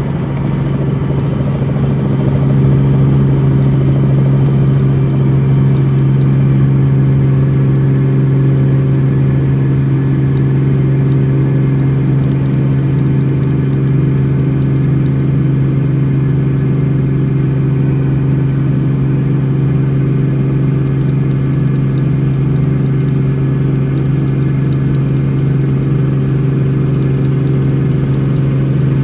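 Robinson R44 Raven II helicopter in flight, heard from inside the cabin: its six-cylinder piston engine and rotors make a steady drone with a strong low hum, a touch louder after about two seconds.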